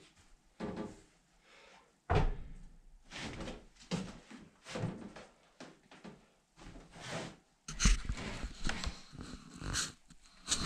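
Pieces of wood being set down, knocked together and shifted on a wooden workbench while a pedestal table base is mocked up: a series of separate knocks and thunks, the loudest about two seconds in and again near eight seconds.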